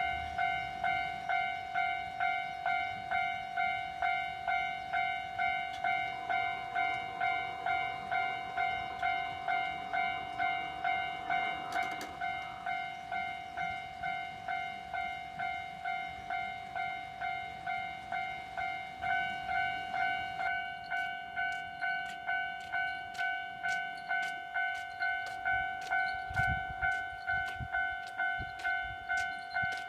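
Japanese railway level-crossing warning bell starts ringing, a rapid steady electronic 'kan-kan' of about two strikes a second. About twenty seconds in, a Kintetsu train passes, its wheels clicking over the rail joints in a regular rhythm.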